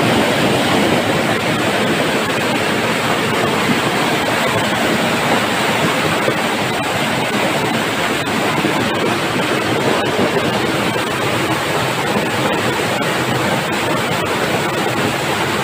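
Flash-flood torrent of muddy water rushing and cascading down a narrow lane between houses: a loud, steady rush of water.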